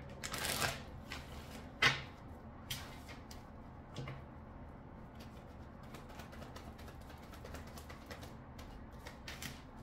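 A deck of reading cards handled and shuffled by hand: a brushing of cards about half a second in, then scattered clicks and taps of the cards and deck against the table, the sharpest about two seconds in.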